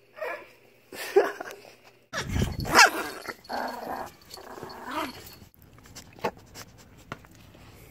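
Dogs growling and crying out in a string of short, pitch-bending calls as a small chihuahua and a Siberian husky scuffle at close range. The loudest cry comes about three seconds in, with a low thump against the microphone; after about five seconds only faint scuffling clicks remain.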